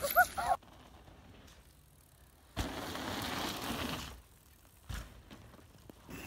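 Mountain bike tyres rolling and scrubbing over a dirt berm as the rider passes close by: about a second and a half of gritty noise midway. A brief chirp comes right at the start and a single click near the end.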